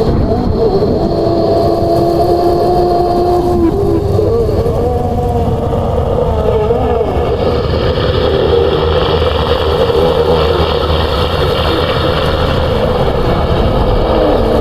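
Horror sound-effect ambience: a deep, continuous rumble with long, wavering moaning tones over it, meant as ghostly cries.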